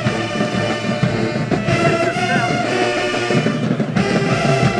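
Brass band music with drums playing, trumpets and trombones among the horns.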